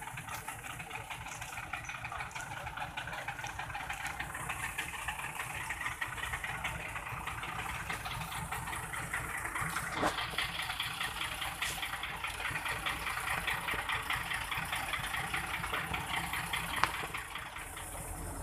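Heavy tow truck's diesel engine idling steadily with an even, fast clatter, and a couple of short sharp clicks, one about halfway through and one near the end.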